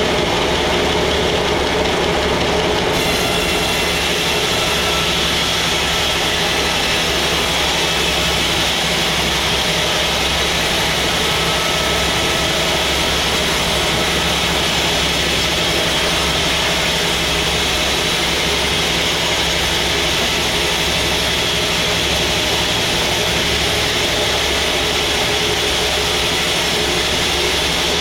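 Sawmill machinery running steadily and loudly, a continuous mechanical hum and noise; a higher hiss joins about three seconds in.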